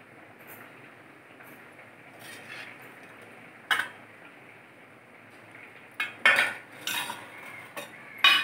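Steel spoon clinking and scraping against a steel plate while serving: one sharp clink about halfway through, then a quick run of clinks near the end.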